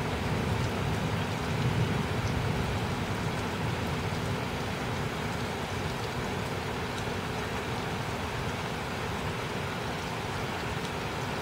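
Steady rain during a thunderstorm, with a low rumble of distant thunder that swells in the first couple of seconds and then settles into a steady low background.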